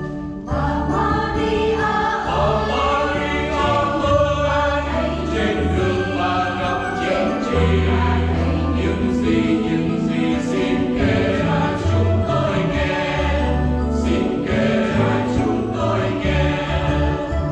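Mixed choir of men and women singing a Vietnamese Catholic Easter hymn in chords, with keyboard and guitar accompaniment and sustained bass notes underneath. The choir comes in strongly just after the start, following a brief lull.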